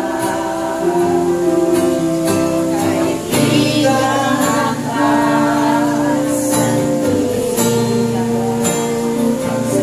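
Worship song: singing over strummed acoustic guitar, the sung notes held and changing every second or so.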